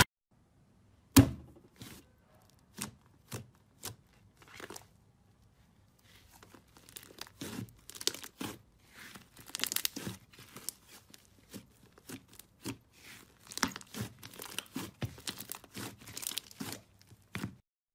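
Slime squeezed and kneaded by hand, crackling and popping as air pockets burst, with a sharp crack about a second in, a few scattered pops, then dense irregular crackling through most of the rest.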